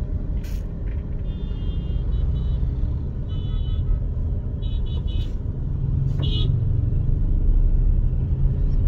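Steady low rumble of idling and slow-moving traffic, heard from inside a car's cabin. A few short, high horn beeps from the surrounding vehicles come through it.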